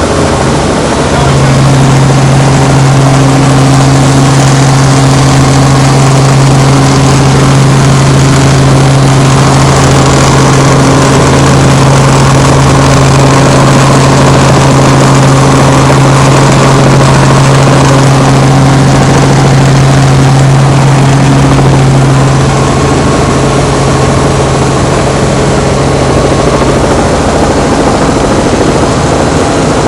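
Robinson R44 helicopter running in flight: its six-cylinder piston engine and rotors make a loud, steady drone with a strong hum and a slow, regular low beat. About three-quarters of the way through the sound eases slightly, and the strong hum fades out near the end.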